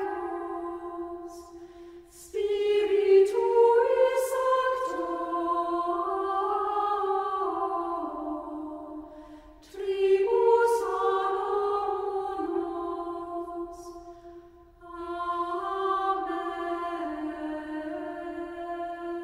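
Background music: a choir singing slow held phrases, with short breaks between phrases about two, nine and fifteen seconds in.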